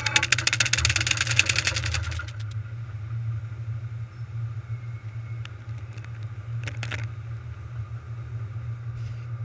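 Automatic tunnel car wash: water spray pelting the camera with a dense crackling hiss for about the first two seconds, then a steady low hum of machinery while cloth wash strips slap across the camera a few times.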